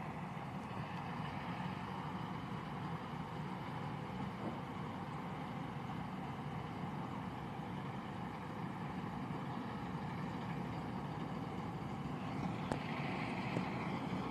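Steady engine hum of a New Holland self-propelled windrower cutting alfalfa. A single sharp click comes near the end.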